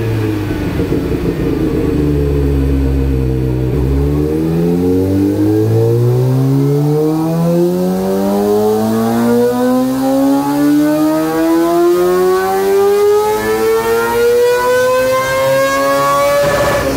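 Kawasaki ZX-25R's 250 cc inline-four running on a chassis dyno. The revs drop to a low note for the first few seconds, then climb steadily in one long rising whine for about twelve seconds. They peak near the end with a brief rasp and start to fall.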